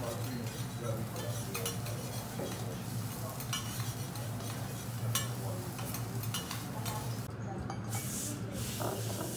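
Metal teppanyaki spatulas scraping and tapping on a steel griddle as garlic fried rice is gathered up, with a light sizzle and many short clicks over a steady low hum.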